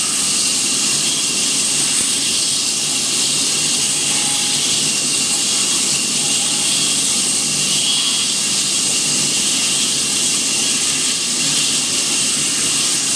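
Power saw in a woodworking shop running steadily: a constant loud whir and hiss with a faint high whine, and no change through the stretch.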